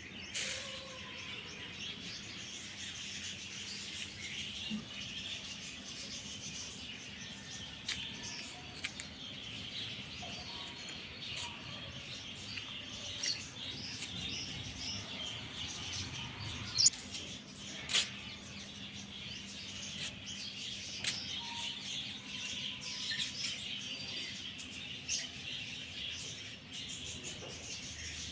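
Many small birds chirping at once, a continuous busy twittering, with scattered sharp clicks, two louder ones a little past halfway.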